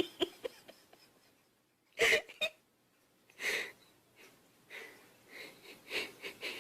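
A cat making a series of short breathy puffs: one sharp burst about two seconds in, a longer one soon after, then several softer ones.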